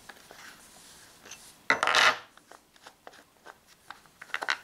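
Handling of an Umarex HDP50 pistol's plastic grip while opening it to remove the spent CO2 capsule: faint rubbing and scraping, one short rasping scrape about halfway through, and a few small clicks near the end.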